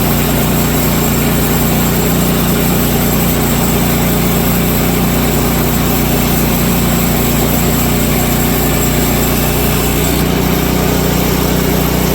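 Woodland Mills HM130 MAX portable sawmill's gasoline engine running steadily.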